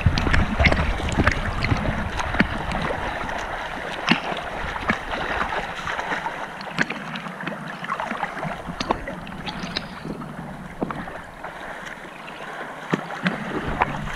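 Water splashing and sloshing: irregular sharp splashes over a steady rush of moving water, with a low rumble that eases off about halfway through.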